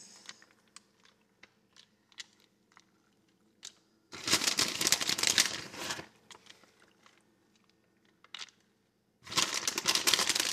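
Crinkling in two loud bursts, about four and nine seconds in, while shredded parmesan is taken by hand and sprinkled over a foil pan of pasta; faint light ticks in between.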